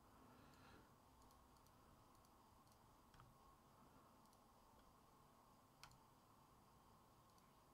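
Near silence: faint room tone with a few soft, sharp clicks, the strongest about six seconds in.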